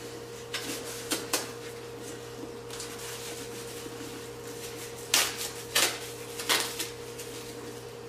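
Packing stuffing rustling and crinkling as it is pulled out of a new handbag, with a few sharper crackles about a second in and again around five to six and a half seconds in. A steady low hum sits underneath.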